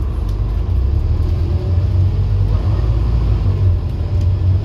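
Scania N230UD OmniCity double-decker bus under way, heard from the upper deck: a steady low engine drone with road rumble, from the bus's 9-litre five-cylinder diesel.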